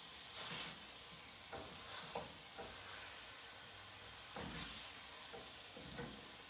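Ground lamb sizzling faintly in a stainless steel sauté pan over low heat, with a wooden spoon scraping and knocking against the pan several times as it breaks up the meat.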